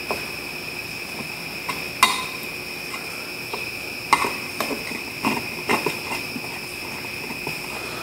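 Screwdriver loosening the terminal clamp screws of a 50-amp 240 V plug: a few light metallic clicks and taps, the loudest about two seconds in, over a steady high-pitched whine.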